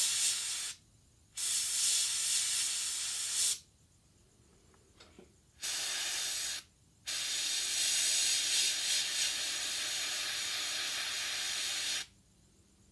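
Airbrush spraying basecoat: four bursts of hissing air as the trigger is pressed and let go, the last and longest lasting about five seconds, with near silence between them.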